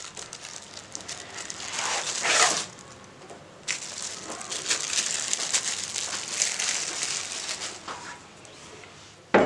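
Plastic packaging crinkling and rustling in bursts as a portable blender bottle is drawn out of its plastic bag and cardboard box, with a single sharp knock near the end.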